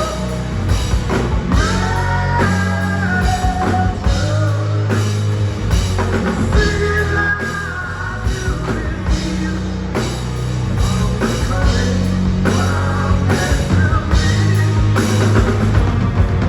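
Live rock band playing an instrumental stretch: an electric guitar lead with held and bending notes over bass guitar and a drum kit with regular cymbal hits.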